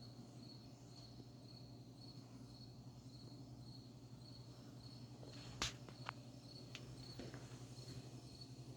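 Faint crickets chirping in a steady rhythm, about two chirps a second, over a low steady hum. About five and a half seconds in there is one sharp click, followed by a few lighter clicks over the next two seconds.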